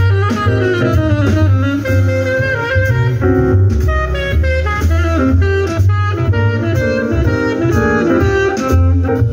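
Instrumental music played through a Marantz PM8000 integrated amplifier and a pair of loudspeakers: a melody over a strong, steady bass line.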